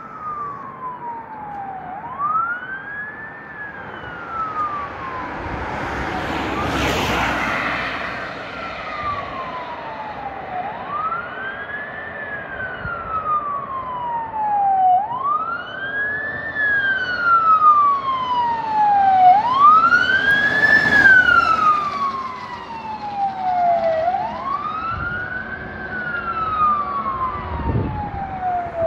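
Fire engine's electronic siren in wail mode, the pitch rising quickly and falling slowly over and over, about every four and a half seconds, growing louder as the MAN TGM 15.290 truck approaches on an emergency run. Two broad whooshes of road noise swell and fade along the way.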